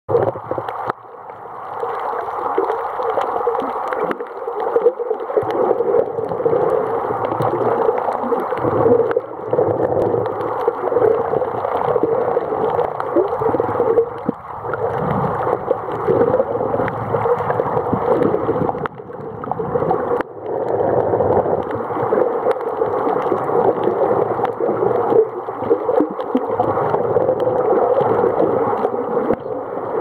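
Underwater ambience picked up by a camera held below the surface: a muffled, steady rushing and gurgling of water with scattered faint clicks.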